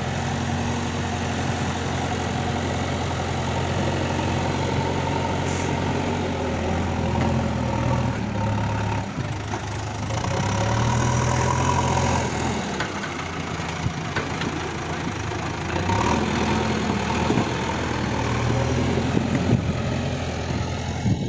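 Diesel engines running steadily, led by a JCB backhoe loader at work. Its note rises and falls a few times as it pushes soil and lifts its loaded front bucket.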